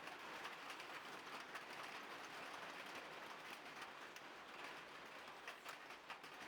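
Faint, steady outdoor background hiss with many small scattered ticks.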